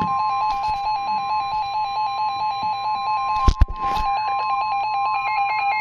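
Weather-radio warning alarm tone for a new alert: a steady high tone with a fast pulsing beep over it. A sharp double knock cuts through about three and a half seconds in.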